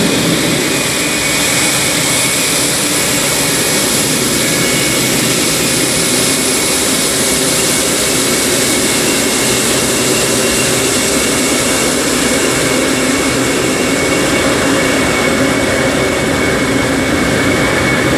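Boeing 777-300ER's GE90-115B turbofan engines running at low taxi power as the airliner rolls past close by: a steady, loud jet rush with a faint high whine.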